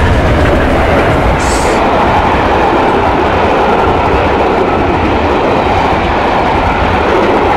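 A passenger train rolls past close by at speed: Class 67 diesel-electric 67019 hauling the Peppercorn A1 steam locomotive 60163 Tornado and its coaches, a loud steady rush of wheels on rail. A brief hiss comes about one and a half seconds in.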